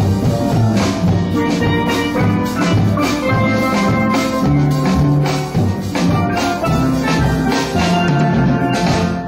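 Steel drum band playing: quick struck steel pan notes ringing over a moving line of low bass-pan notes, with drums keeping the beat.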